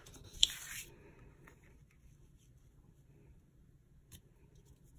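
Cardstock being handled and slid over a cutting mat: a short papery rustle with a sharp tap about half a second in, then a few faint taps as the glued panel is laid onto the blue card layer and lined up.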